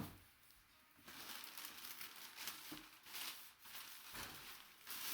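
Packing material crinkling and rustling in uneven bursts as hands dig through a box, after a single knock at the start.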